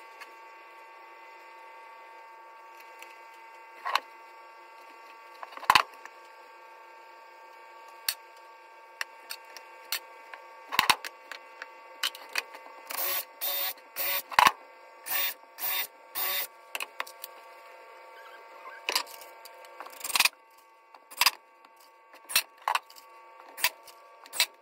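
Brad nailer firing 18-gauge brad nails into a plywood drawer box: scattered single sharp shots, then a quick run of about six shots near the middle, over a steady background hum.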